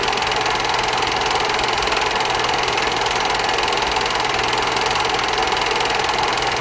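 Film projector running steadily: an even mechanical whir and fast clatter over a low, constant hum.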